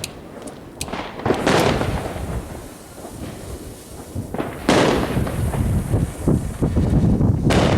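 Fireworks going off: a string of sharp bangs with echoing tails, and smaller cracks between them. The biggest bangs come about a second and a half in, about five seconds in, and near the end.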